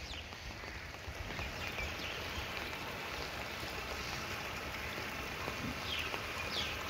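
Steady rain falling on a flooded street's standing water, with a few short high falling chirps near the end.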